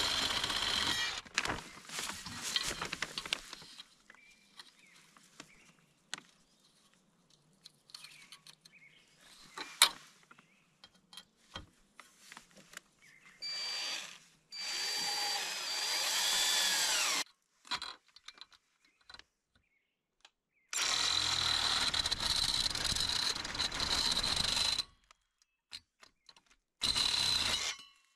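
Power drill running in several bursts of one to four seconds, with a steady motor whine, separated by quiet stretches with a few small knocks.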